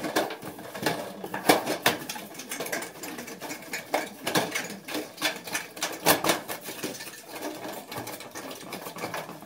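Galvanized sheet-metal ductwork clicking and rattling as the notched tabs of a round collar are bent over inside a transition, with irregular metallic clicks and knocks several times a second.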